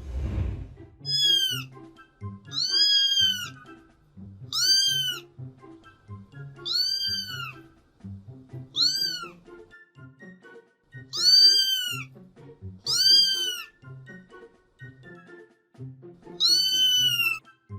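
A cat meowing over and over: about eight high-pitched meows, each rising then falling in pitch, spaced roughly two seconds apart, over background music with a steady beat.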